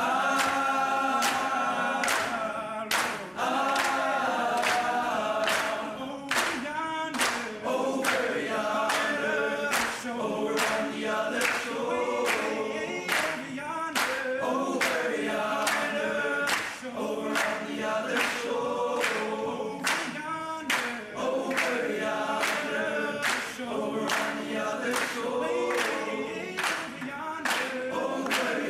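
Choir of teenage boys singing in parts, with sharp hand claps keeping a steady beat about twice a second.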